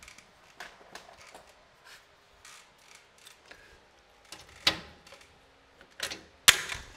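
Scattered metal clicks as a hand rivet gun fastens a steel ceiling-grid main to the wall angle, with several sharp snaps in the second half and the loudest near the end.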